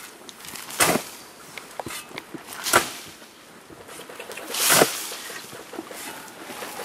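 A shovel digging into sandy earth, three strokes about two seconds apart, each a short scraping crunch of the blade driving into the soil and flinging it out; the third is longer.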